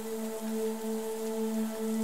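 Soft ambient music, a held low chord with no clear beat, over the even hiss of steady rain.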